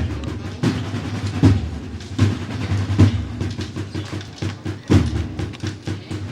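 Recorded Spanish cornet-and-drum band march music in a drum-led passage: snare drums rattling steadily under bass drum beats about every three-quarters of a second.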